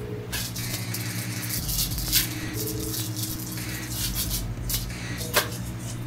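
Microwave oven running with a steady electrical hum, with irregular crackles and a few sharp snaps from inside the oven, the loudest about two seconds in and near the end.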